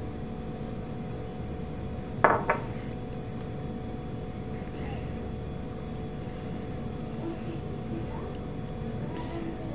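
A drinking glass set down on a table: a sharp clink about two seconds in, followed at once by a lighter second knock. A steady hum and hiss run underneath.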